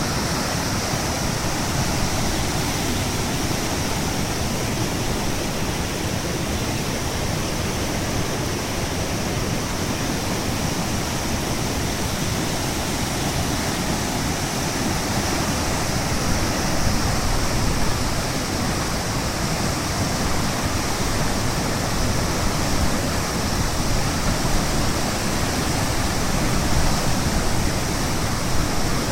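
Usui River swollen in flood by typhoon rain: fast water rushing steadily and loudly with no let-up.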